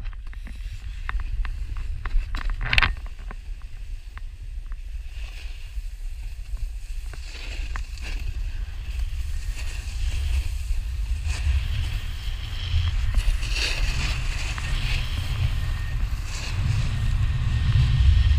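Snowboard sliding and carving over snow, with wind buffeting the action camera's microphone: a steady low rumble under a hissing scrape that builds as the ride picks up. A few knocks in the first three seconds.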